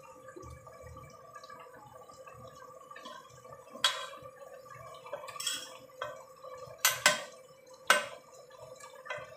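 Pots boiling on a gas hob: a low bubbling boil under a steady faint tone, with four or five sharp metallic clinks about halfway through.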